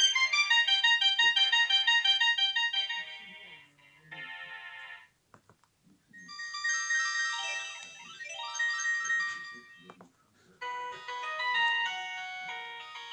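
Samsung E1202i mobile phone playing a series of short electronic ringtone melodies through its small speaker, each a run of clean beeping notes. The melodies change about a third of the way in, again at about the middle, and again near the end, with a few brief clicks in the gap between two of them.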